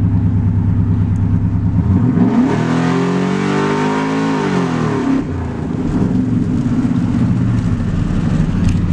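Truck engine, fitted with new lifters, idling and then revved hard about two seconds in. It holds high revs with a loud rush of exhaust for about three seconds, then drops back to idle.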